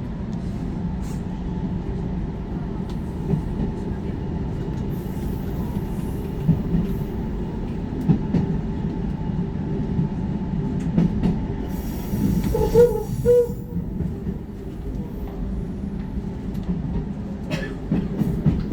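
Inside a moving JR Hokkaido 733-series electric train: a steady rumble of wheels on the rails and running noise, with wind buffeting the microphone at the window. About two-thirds of the way through come a burst of hiss and two short tones.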